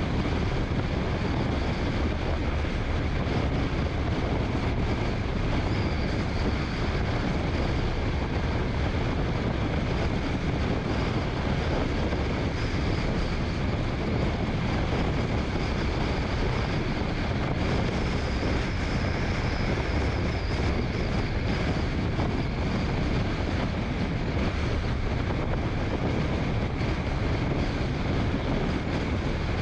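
Steady road and wind noise of a car cruising at highway speed: an even rumble of tyres on pavement with a faint whine above it, unchanging throughout.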